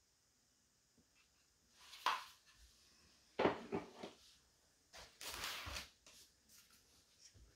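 Handling noises with no motor running: a short scrape about two seconds in, a few sharp knocks and clicks around three and a half seconds, and a longer rustling scrape a little past five seconds.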